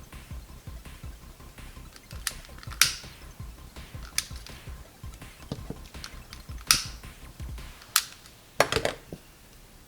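Several sharp clicks and clacks of small objects being handled and set down on a work surface, with a short rattling cluster near the end, over faint background music that stops about three-quarters of the way through.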